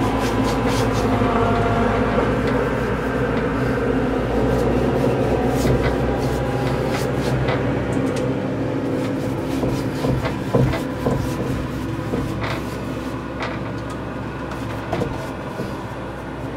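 A steady machine-like hum runs throughout. Over it come scattered light clicks and scrapes from a paintbrush worked along a door edge and knocked in a paint can.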